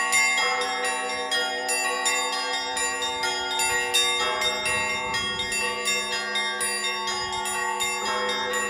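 Russian Orthodox church bells rung by a bell ringer: small high bells are struck rapidly, several times a second, over the sustained ringing of the larger bells. A deeper bell comes in about every four seconds.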